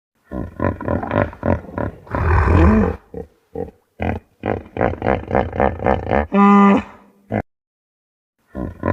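Hippopotamus calling: a run of short rapid grunts, about five a second, ending in a longer, louder bellow, then a second run ending in a shorter pitched honk. After a second's pause the grunting starts over near the end.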